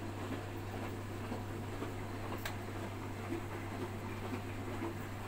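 Front-loading washing machine running with a steady low hum, with a single sharp click about two and a half seconds in.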